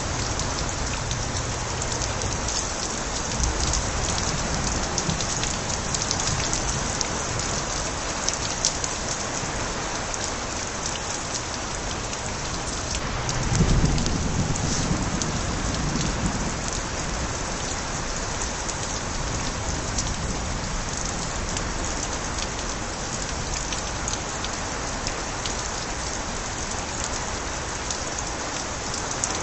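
Steady heavy rain with water overflowing from gutters, a dense patter with many small drop ticks. About halfway through comes a brief low rumble of thunder.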